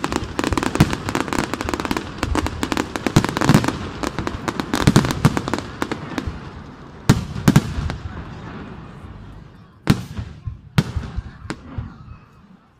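Aerial fireworks shells bursting: a dense barrage of bangs and crackling for about the first six seconds, then thinning to a few single booms as the barrage dies down.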